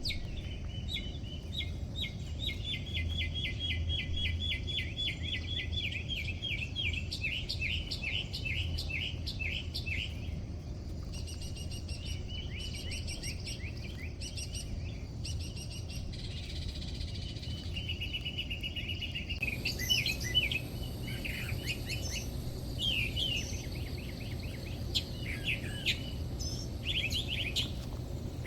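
Small birds chirping and trilling in quick repeated runs, over a low steady rumble.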